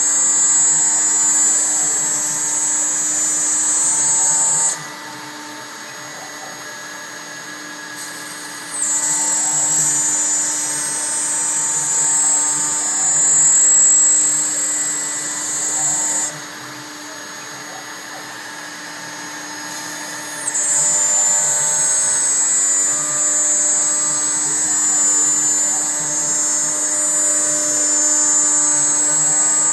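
CNC router cutting plywood: the spindle's steady whine with a loud high-pitched cutting noise from the bit. The cutting noise drops away twice for about four seconds, leaving a quieter steady hum, then comes back.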